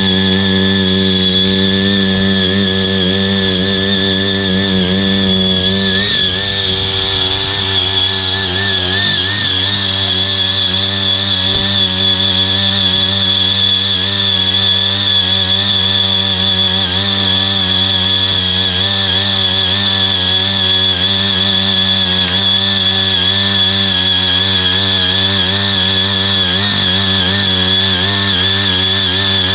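Small engine of a CY80 foldable power tiller running steadily while it tills, its pitch wavering up and down from about six seconds in.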